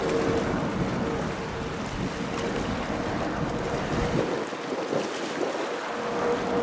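Boeing 777-300ER's GE90 jet engines on final approach, heard from the ground as a steady distant rumble with a faint hum. Wind buffets the microphone.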